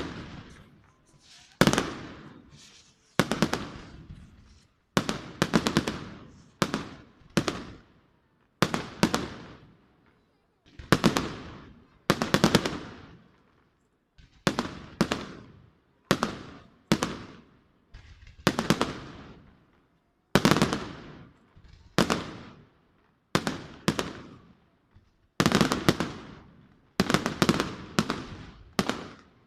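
Aerial fireworks bursting in a steady series of bangs, about one every one to two seconds, some as quick crackling clusters. Each bang trails off in a rolling echo.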